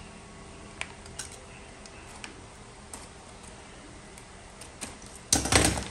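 Scattered light clicks and taps as a filament spool's packaging is handled, then a short, loud crinkle of plastic wrapping near the end as it is opened.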